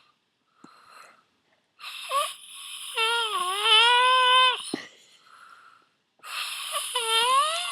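A person snoring: long, high-pitched, wavering snores that dip and rise in pitch, with quiet gaps between them.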